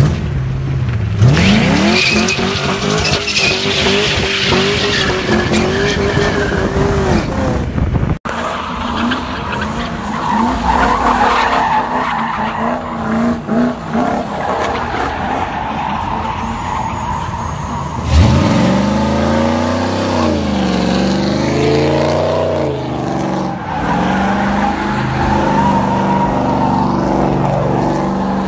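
A muscle car engine revs hard under acceleration; its pitch climbs and holds for several seconds before dropping. After a cut, a car doing donuts: the engine revs rise and fall, with a loud jump in revs about two-thirds of the way through, over a steady squeal of spinning tyres.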